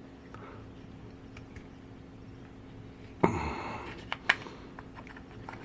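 Metal handling sounds from a pocket-watch case being unscrewed by hand. About three seconds in there is a sudden short rasp, then a few sharp clicks.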